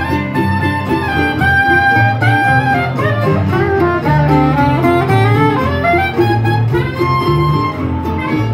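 Live old-time jug-band music: a soprano saxophone plays the lead melody in held notes over strummed acoustic guitars and a walking upright bass.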